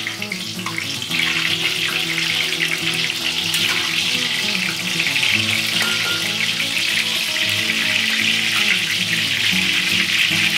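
Chive and shrimp fritters sizzling and crackling as they deep-fry in hot oil in a stainless steel wok, louder from about a second in, with background music underneath.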